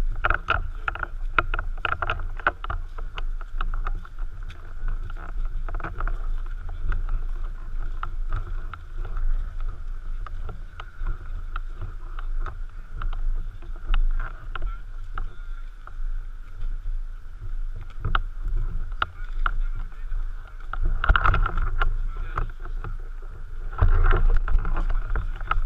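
Steady low rumble on a worn camera's microphone, the kind that wind and handling make, with many scattered small clicks and knocks and louder swells near the end.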